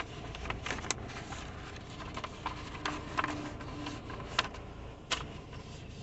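Sheets of paper rustling and being handled, with scattered sharp clicks and taps inside a car cabin.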